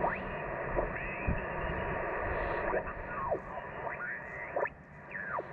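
Ham radio transceiver's speaker giving out receiver hiss, cut off above about 3 kHz, with several whistling tones that glide up and down in pitch as the tuning knob is turned across signals.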